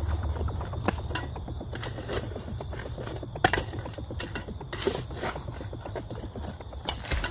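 A short-handled shovel digging into a dirt bank: irregular scrapes and knocks as the blade bites into the soil and dirt is thrown. The sharpest knocks come about three and a half and seven seconds in.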